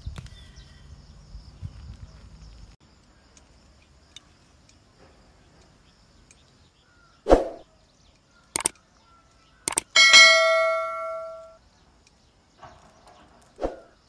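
Subscribe-button sound effect: a short swoosh, two sharp mouse clicks, then a bright notification bell ding that rings and fades over about a second and a half, with another swoosh near the end. Low rustling of plants being pulled fills the first few seconds.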